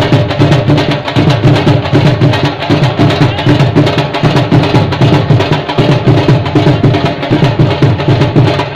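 Loud drum-driven music with a fast, steady beat.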